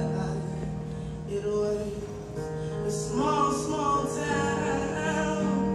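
Live electric keyboard playing held chords, with a woman's singing voice gliding over them about halfway through.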